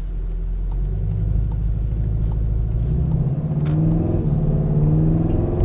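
Volkswagen Golf 7 R's turbocharged four-cylinder engine running under way, its note rising in pitch from about three seconds in as the car accelerates.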